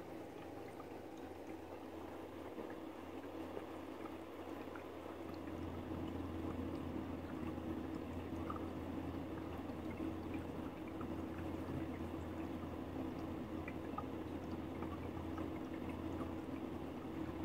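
Steady bubbling, liquid sound over a low electrical hum, growing a little louder about six seconds in.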